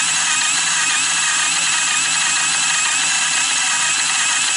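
Electric starter of a 1986 Honda TRX200SX ATV spinning its engine over with the spark plug out: a steady, even whine with no clanging or banging, a sign that the engine turns freely.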